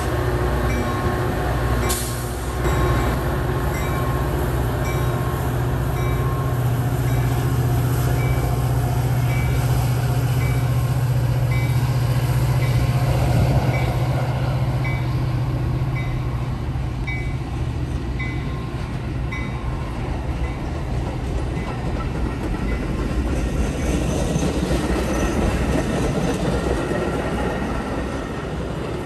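Metra diesel-hauled commuter train passing: the locomotive's engine gives a steady low drone that fades about halfway through as it pulls away, while the bilevel coaches run by with steady wheel-on-rail noise. A sharp metallic clank comes about two seconds in.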